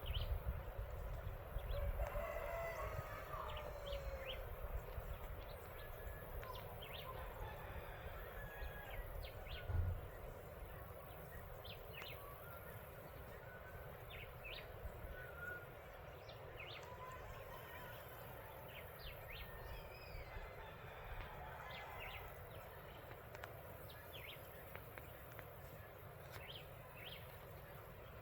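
A rooster crowing once, about two seconds in, with small birds giving short, sharp calls throughout. A low rumble underneath fades after about ten seconds.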